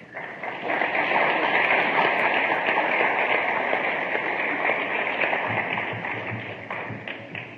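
Crowd applauding and cheering, swelling up within the first second and slowly fading toward the end.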